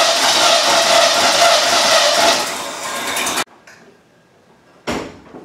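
Freshly rebuilt 350 small-block Chevy V8 being cranked over in a start attempt, loud and steady, fading over its last second before cutting off abruptly about three and a half seconds in; the engine will not keep running. A single clunk follows about five seconds in.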